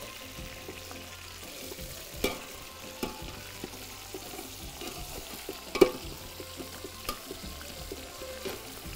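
Chicken pieces frying with onions in a large aluminium pot, being turned with a wooden spoon and a metal skimmer to take on the onion flavour. Scraping and stirring run throughout, with several sharp knocks of the utensils against the pot; the loudest comes a little past halfway.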